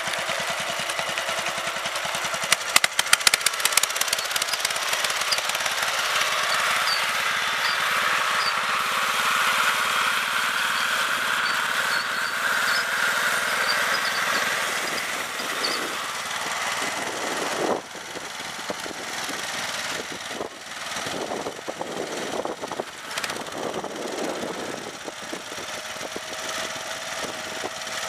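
Snapper LT11 lawn tractor's engine running as it drives and pushes a front plow blade through light snow, with sharp clattering knocks about three seconds in and more irregular knocking and scraping from the blade on pavement in the second half.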